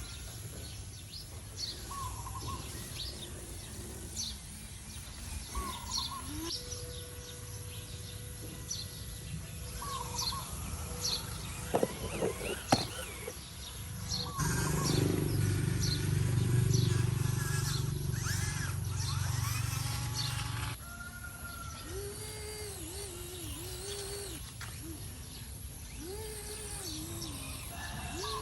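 Birds chirping repeatedly over steady outdoor background noise. About halfway through, a louder low hum starts and runs for around six seconds, then cuts off suddenly.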